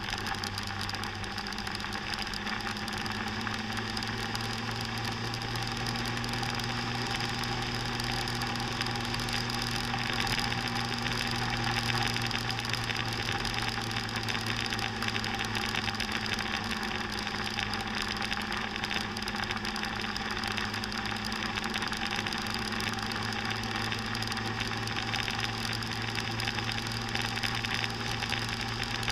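Scooter engine running steadily while the scooter cruises at an even speed.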